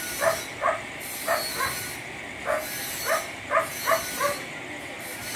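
An animal's short calls, repeated irregularly about twice a second, over a steady background hiss.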